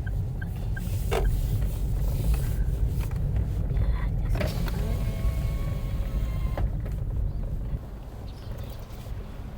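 Steady low rumble of a car moving slowly, heard from inside; faint steady tones join in about halfway.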